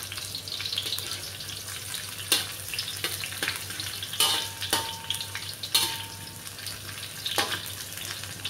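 Sliced shallots, garlic and red chilli sizzling in hot oil in an aluminium wok, a steady high hiss. A metal spatula scrapes and clinks against the pan about five times, with a brief faint ring in the middle.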